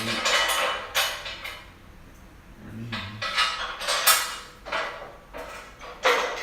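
Steel parts of a motorcycle dolly clanking and rattling as they are handled and fitted together, in several separate bursts of clatter.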